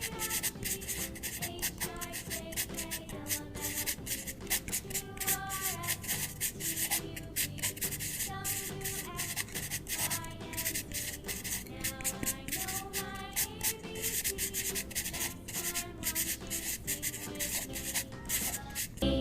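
A drawing tool rubbing over paper in quick, irregular back-and-forth colouring strokes, heard over soft background music with a gentle melody.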